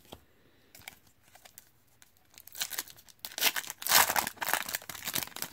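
Foil wrapper of a 2014 Topps Chrome Mini football card pack being torn open and crinkled by hand. After a couple of seconds of faint handling ticks, the crinkling and tearing start about two and a half seconds in, loudest near the end.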